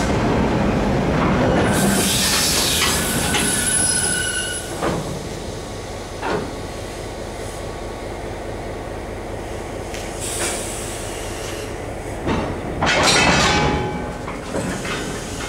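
Railway ballast hopper wagons rolling slowly past, starting with a loud rumble. The wheels screech on the rails about two seconds in and again near the end, with single clanks in between.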